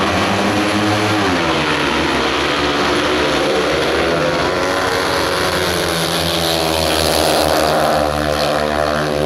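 A pack of speedway motorcycles, 500 cc single-cylinder methanol engines, running at full throttle as they pull away from the start and race through the first bend, the pitch rising and falling with the throttle. The engines get louder near the end as the bikes pass close.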